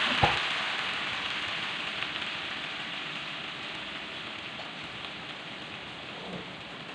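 Water sizzling and bubbling as it hits the hot oil in a pan of sautéed mushrooms, onion and garlic, turning to steam. The sizzle is loud at first and slowly dies down as the pan cools. There is a single knock just after the start.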